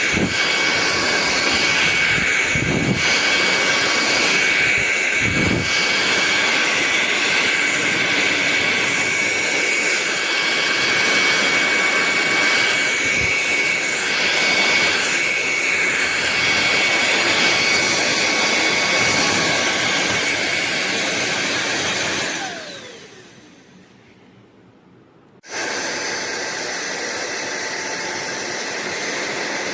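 Sulean X8 cordless stick vacuum running with a steady high whine. About 22 seconds in it is switched off and winds down with a falling tone. About three seconds later it starts again abruptly, a little quieter than before.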